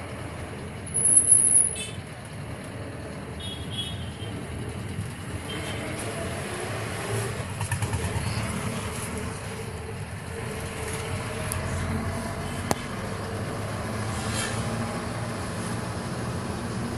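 Engine and road noise heard from inside a moving cab, a steady low rumble. About a second in comes a brief loud high-pitched sound, and about two-thirds of the way through a single sharp click.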